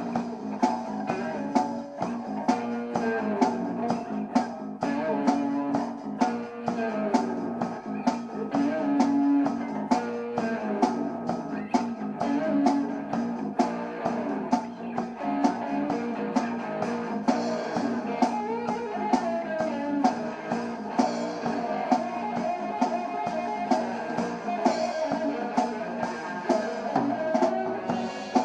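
Instrumental rock jam: electric guitar playing over a steady drum beat, with no singing.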